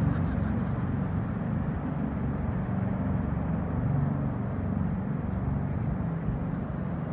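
Bell Boeing MV-22 Osprey tiltrotor heard from a distance, a steady low rumble of its engines and rotors.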